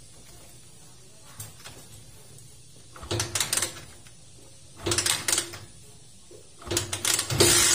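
Honda TMX 125 Alpha's single-cylinder four-stroke engine being kick-started: two short tries that fire briefly and die, then it catches on the third near the end and keeps running loud. Its valve clearances have just been reset to cure a ticking from the engine.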